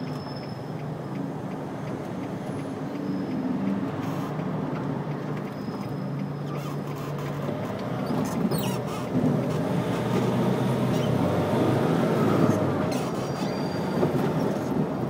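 Car engine and road noise heard from inside the cabin: a steady low running sound at first, then growing louder as the car pulls away and picks up speed about halfway through.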